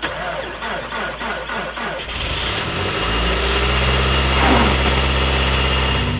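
Toyota Tacoma pickup's engine cold-started in deep cold. The starter cranks for about two seconds, the engine catches, and it settles into a steady idle.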